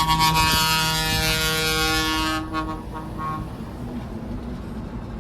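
Truck air horn blowing one long multi-tone chord for about two and a half seconds and then cutting off, over steady road and engine noise.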